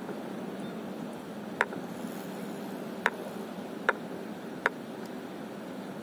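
Steady outdoor hiss with four short, sharp clicks at uneven spacing, the first about a second and a half in and the other three close together in the middle.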